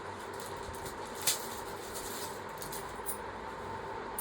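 Steady low background noise with a faint hum, and one short sharp click about a second in.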